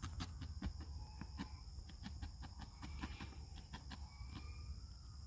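Felting needle jabbing repeatedly through loose wool into a foam pad: a quick, irregular run of soft clicks, a few a second. Insects buzz steadily in the background.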